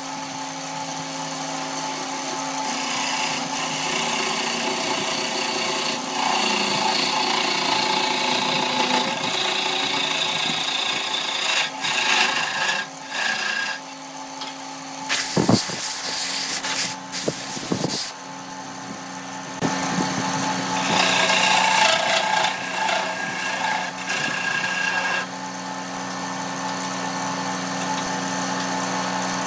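Electric wood lathe running with a steady motor hum while a gouge cuts into the spinning wooden bowl, a scraping hiss of shavings coming off. The cutting comes in long stretches with pauses where only the motor hums, and a few sharp knocks come about halfway through.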